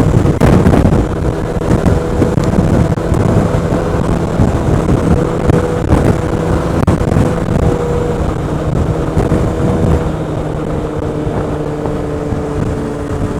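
Honda Forza 125 scooter's single-cylinder engine running at a steady cruise on the motorway, picked up by a microphone inside the rider's helmet, with wind rumble. About ten seconds in, the engine note drops slightly and gets a little quieter.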